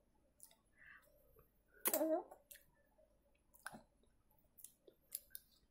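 A baby sucking and smacking on a lollipop: scattered faint mouth clicks, with one short louder sound about two seconds in.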